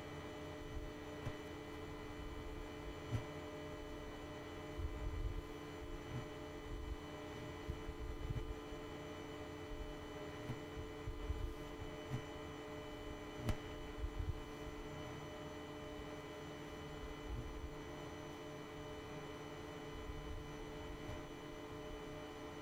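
Steady hum made of several held tones, with uneven low bumps now and then and a single sharp tick about 13 seconds in.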